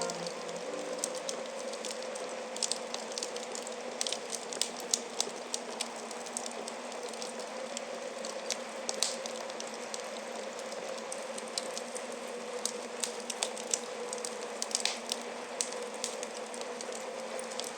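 Wood fire crackling in a fireplace: irregular sharp pops and snaps over a steady hiss, with a faint steady hum underneath.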